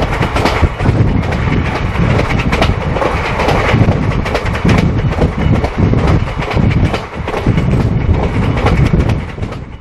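Moving passenger train heard from the open door of a coach: loud rushing noise with the wheels clattering over the rail joints. It cuts off suddenly near the end.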